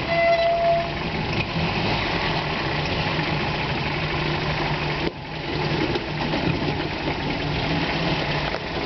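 Vehicle engine running steadily at low revs, idling, with a short high steady tone just after the start and a brief dip in level about five seconds in.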